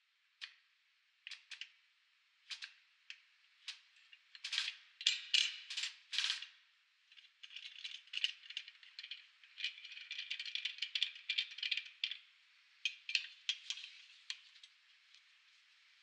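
Metal clicks and rattles from a hand-adjusted spring compressor as its jaws and frame are set against a coil spring: scattered knocks, then a few seconds of quick, close-set clicking in the middle, thinning out near the end.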